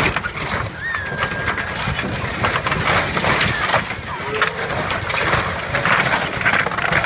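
Excavator demolishing a wood-framed building: a sudden crash, then continuous cracking, crunching and breaking of timber and siding as the wall caves in, with the machine's engine rumbling underneath.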